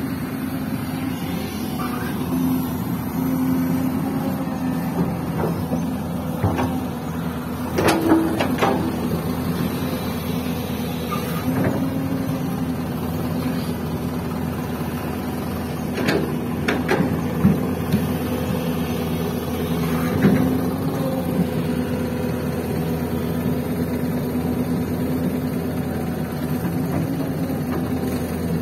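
Diesel engines of a Mitsubishi Colt Diesel dump truck and a Hyundai excavator running steadily, with a few sharp knocks and clanks now and then.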